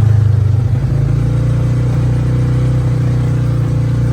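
Engine of an off-road buggy running loud and steady at an even speed.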